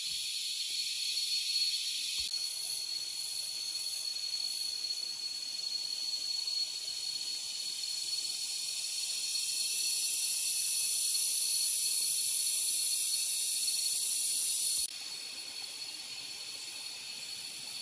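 Chorus of forest insects: a steady, high-pitched shrilling hiss with one thin sustained tone in it. It grows louder towards the middle and drops sharply about fifteen seconds in.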